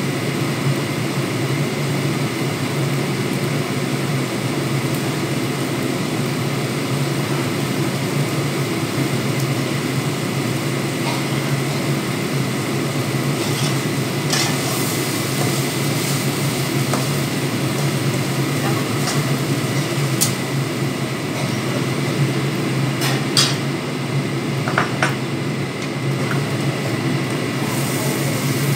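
Cooking in a pan on the stove: a steady hiss and hum, with a few sharp clicks of a utensil against the pan from about halfway through.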